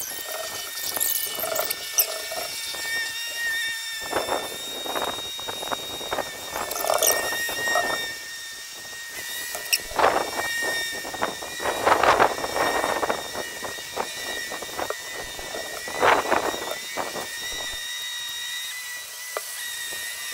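Sped-up sound of a Coleman propane camp stove burner heating a pot of water, heard as a high-pitched squealing. It has steady thin tones and irregular clusters of sharp short chirps.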